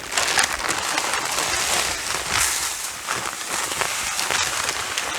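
Dry chicken feed being poured from a bag into a plastic bucket feeder: a continuous rattling hiss of many small grains landing.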